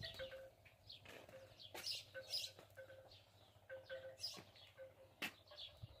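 Small birds chirping faintly and repeatedly in short, quick calls, with a couple of sharp clicks in the second half.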